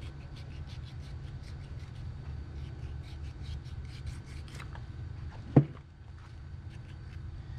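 A Danco knife scraping and cutting through the tough, bony scutes on an alligator's back, in short repeated strokes, with the blade barely getting through. One sharp knock about five and a half seconds in.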